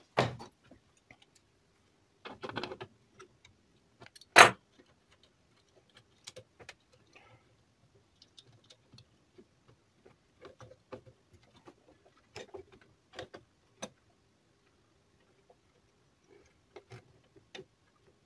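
Scattered small metallic clicks and rattles from hand tools and parts being handled on a radio chassis, with one sharp click about four and a half seconds in.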